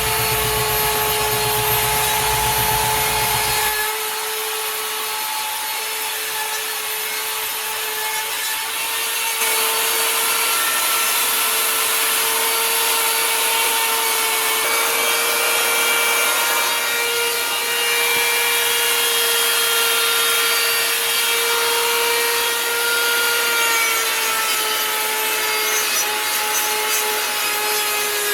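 A power carving tool running steadily and cutting into white cedar wood, with a sustained high whine over the rasp of the wood. A low rumble under it stops about four seconds in.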